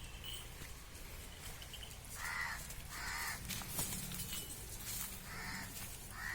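A crow cawing: four short calls in two pairs, starting about two seconds in.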